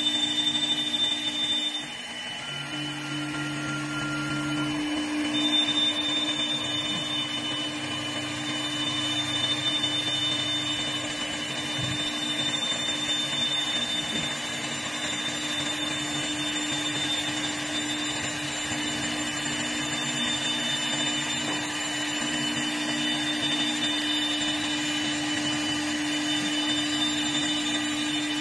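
CNC wood lathe turning a wooden pool cue blank, its cutter taking wood off: a steady machine whine over a continuous hiss, dipping briefly about two seconds in.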